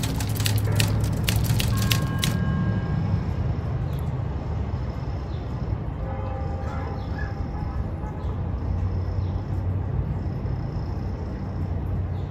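Outdoor city background: a steady low rumble, with a rapid crackle of clicks for about the first two seconds and a few faint brief tones later on.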